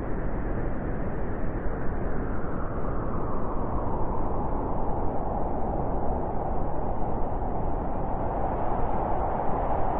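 Steady, deep rushing white noise for sleep, with most of its energy in the low and middle range and little hiss on top.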